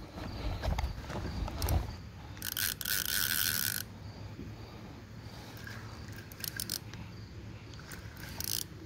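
Fishing reel ratcheting as a hooked fish is played and reeled in. A louder buzz of about a second and a half comes around two and a half seconds in, and shorter bursts of clicking follow near the end.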